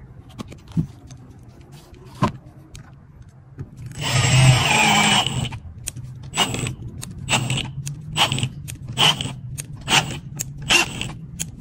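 A few handling clicks, then a cordless drill/driver runs a waxed screw in wood for about a second and a half. After that come short trigger pulls about once a second as the clutch is stepped up one setting at a time.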